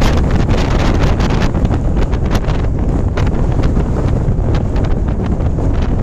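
Extreme mountain wind, around 140 km/h, buffeting the microphone: a loud, continuous low rumble broken by rapid, gusty flutter.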